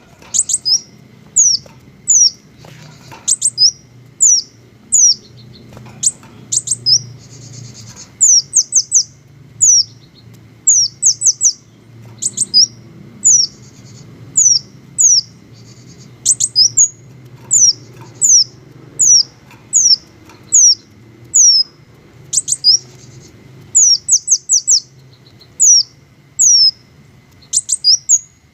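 Small bird, called a green hummingbird, singing: sharp, high, falling chirps about once a second, singly or in quick runs of two to four, with a few short buzzy trills mixed in.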